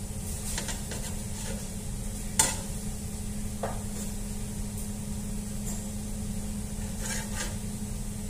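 Light clicks and scrapes of a knife and bread slices on a metal sheet pan, with one sharp click a little over two seconds in, over a steady low hum.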